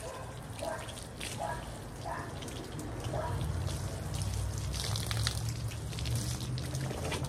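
Running water during a dog's bath, with dripping and splashing. A short, higher sound repeats about every three-quarters of a second through the first half.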